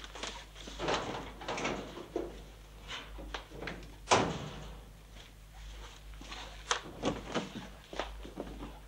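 Steel locker doors being handled: a run of metallic knocks and clicks, with one louder bang about four seconds in.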